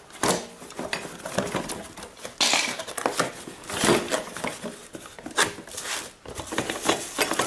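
Cardboard box being opened by hand: irregular scrapes, knocks and rustles as the flaps are pulled open and the plastic-wrapped contents are handled.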